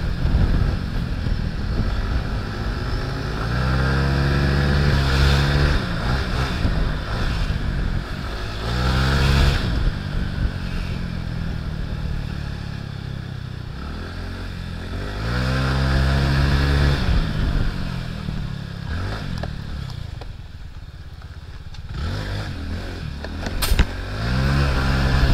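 A Honda scooter's small single-cylinder engine on the move, revving up and easing off about four times, over steady wind and road noise. There is a quieter lull, then a single sharp click near the end.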